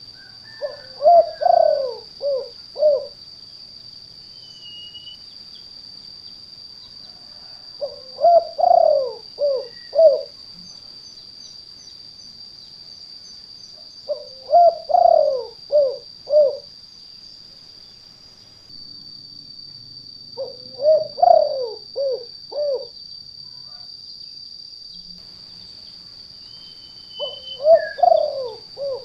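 Spotted dove (tekukur) cooing in the 'kuk 2' style: five phrases about six seconds apart, each ending in two short separate 'kuk' notes. A steady high-pitched tone runs underneath.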